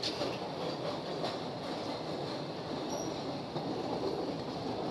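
Narrow-gauge cave railway train running through a rock tunnel, heard from aboard: a steady rumble of wheels on the rails, with a short high squeal about three seconds in.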